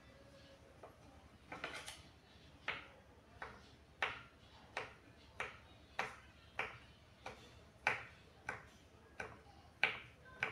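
Kitchen knife chopping tempeh on a wooden cutting board: sharp knocks of the blade hitting the board, about three every two seconds, starting about a second and a half in.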